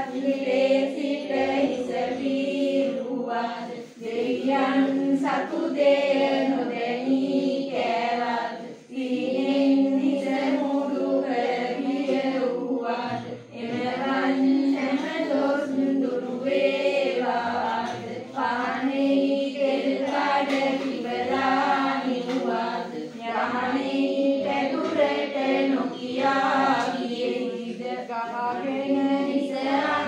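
A group of women chanting together in unison, a Buddhist devotional chant in long, evenly held phrases with brief pauses for breath between them.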